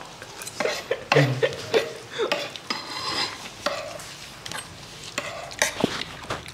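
Metal spoons scraping and clinking against a wooden board and a plate as fried rice is scooped up, in scattered short strokes, with mouth noises from eating.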